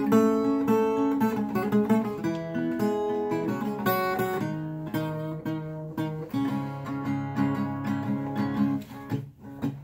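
Twelve-string acoustic guitar strummed and picked in an instrumental passage, its chords ringing and changing every second or so, getting quieter near the end.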